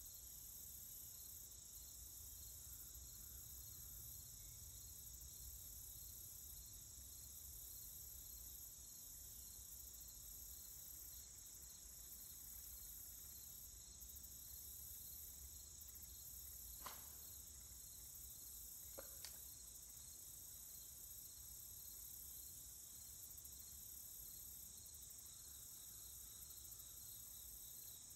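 Faint steady insect chorus, a high-pitched chirring of crickets, over a low rumble. Two faint sharp clicks come about two-thirds of the way through, a couple of seconds apart.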